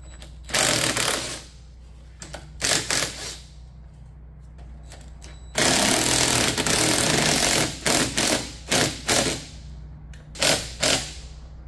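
Cordless impact wrench hammering in bursts on the front fork-tube clamp bolts of a 1986 Polaris Scrambler three-wheeler, loosening them: a few short bursts, one longer run of about two seconds midway, then more short bursts near the end.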